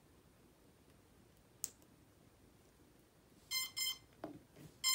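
Quadcopter's brushless motors sounding the ESC power-up beeps as the battery is plugged in: a sharp click about a third in, then two short beeps in quick succession and a longer beep at the end, with a few soft knocks in between.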